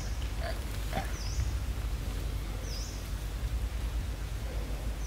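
Outdoor forest ambience: a short, high chirp that dips and rises repeats about every one and a half seconds over a steady low rumble, with a few faint clicks or rustles within the first second.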